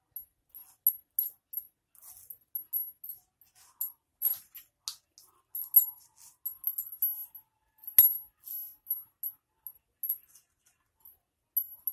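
Bangles on a moving wrist clinking in many small, high tinkles as toothpicks are pushed into fried potato balls on a glass plate, with one sharper click about eight seconds in.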